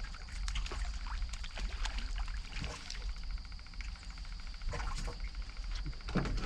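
A hooked crappie splashing and thrashing at the water's surface as it is reeled in and swung out of the water, with a thump near the end.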